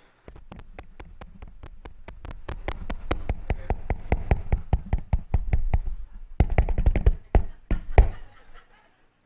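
Fingertips tapping on a live microphone during a mic check. The rapid taps come through the PA, about five or six a second, with a low thump on each. They get louder as it goes and end with a few heavier, spaced taps.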